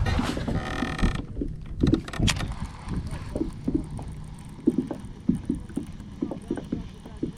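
Handling noise aboard a fishing kayak: a brief whir in the first second, then a run of light knocks and bumps against the hull and gear.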